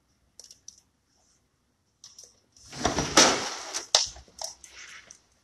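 Handling noises close to the microphone: a few light clicks, then a loud rustling scrape lasting just over a second, followed by several sharp clicks and taps.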